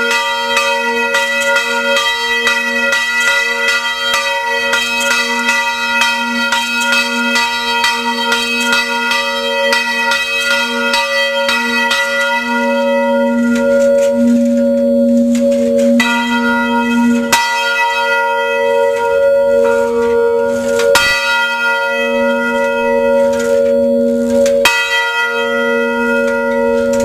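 Church bell ringing loudly and continuously, its stroke tones overlapping into one sustained hum. Several distinct fresh strikes stand out in the second half.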